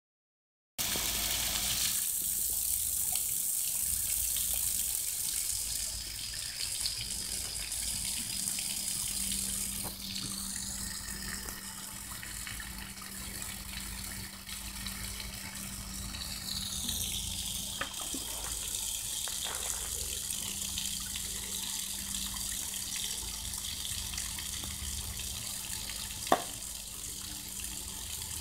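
Water running from an outdoor standpipe spigot and splashing onto a wet concrete pad, a steady rushing hiss that starts about a second in. A single sharp knock sounds near the end.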